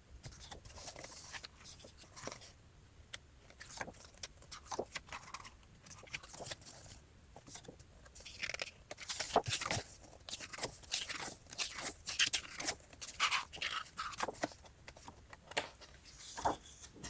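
Pages of a photobook being turned by hand: faint, irregular paper rustles and soft taps.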